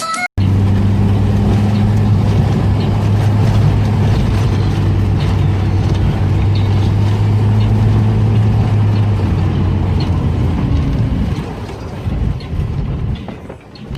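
A motor vehicle's engine running with a steady low drone and road noise, fading away about eleven seconds in.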